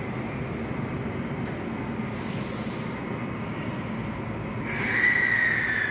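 E657-series limited express train standing at the platform as its doors close and it gets ready to leave, with a steady low rumble. A short hiss comes about two seconds in, and a louder hiss near the end carries a whine that falls in pitch.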